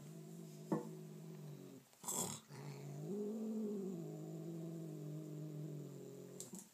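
Angry cat growling: a long low growl, a short hiss about two seconds in, then a longer growl that rises in pitch and sinks back. It is a warning growl at being approached and touched.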